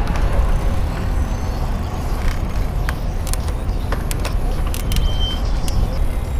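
Wind rumbling on the microphone of a bicycle rider's action camera while riding, with city road traffic behind it and scattered short clicks and taps.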